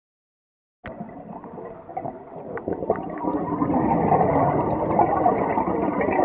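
Underwater sound picked up through a camera housing: bubbling, gurgling water from a scuba diver's exhaled bubbles, starting abruptly about a second in and building up over the next few seconds, with a few sharp clicks.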